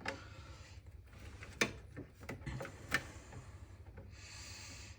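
Faint handling noise inside a desktop PC case: parts and cables rubbing and scraping, with a few sharp clicks and knocks, as a power supply is worked into place past a cable in the way.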